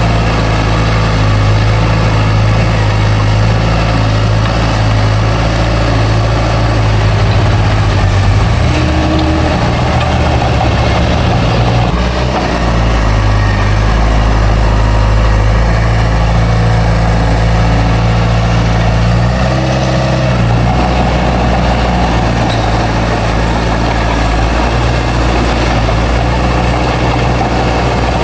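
Heavy diesel engine of a bulldozer running steadily, its note shifting as the load changes about a third of the way in and again about two-thirds through.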